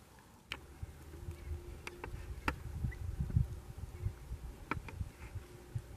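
Handling noise from a camera moved about in dry leaves: a low rumble with several sharp clicks and crackles, and a faint steady hum that comes and goes.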